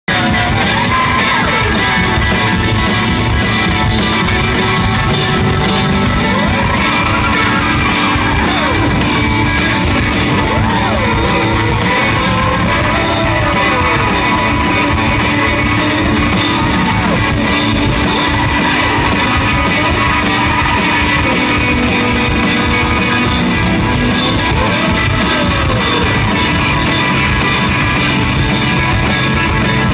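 A rock trio of two electric guitars and a drum kit playing loud, recorded from the audience. A wavering tone slides up and down over the band several times.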